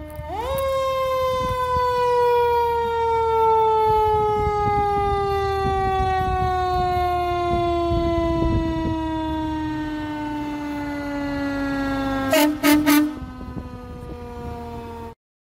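Fire truck siren sweeping quickly up and then winding slowly down in one long falling wail over the truck's engine rumble. About twelve seconds in, a few short, loud blasts of the truck's horn.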